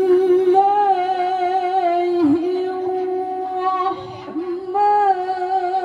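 A young woman's solo voice chanting long held notes with small ornamented turns and wavering pitch, with no instruments. The style is Islamic vocal chanting, as a santriwati performs at a ceremony.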